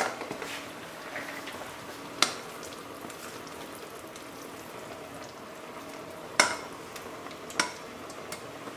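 A pot of mussels cooking with a steady low sizzle while thick cream sauce is poured in. A few sharp knocks of the saucepan and silicone spatula against the pot break through it.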